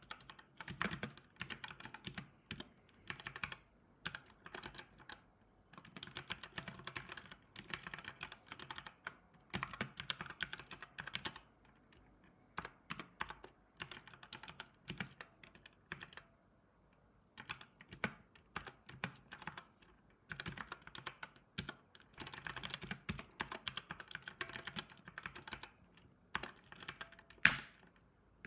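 Typing on a computer keyboard: quick runs of keystrokes in bursts with short pauses, and one noticeably louder key press near the end.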